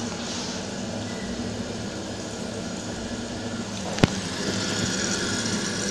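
Steady low background hum, with a single sharp click about four seconds in.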